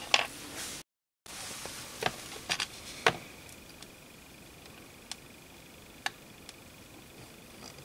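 Soldered copper strips handled and set down on a wooden bench with a click, then, after a short break, a quick run of sharp clicks and taps as a copper strip and solder wire are positioned. After that only a few faint ticks while the soldering iron's tip melts solder onto the copper, with a faint steady high tone in the background.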